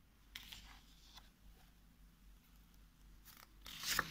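Paper page of a picture book being handled and turned: a few faint soft ticks, then a short dry rustle near the end.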